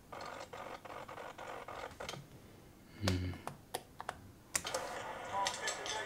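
Laptop keys and touchpad clicking irregularly while footage is scrubbed and played, with one soft low thump about three seconds in. No fan noise.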